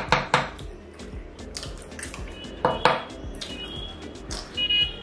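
A cooked mutton bone knocked sharply against the table, twice at the start and twice more nearly three seconds in, as the eater works the marrow loose. Near the end comes a short, high, squeaky suck as the bone is sucked at the mouth.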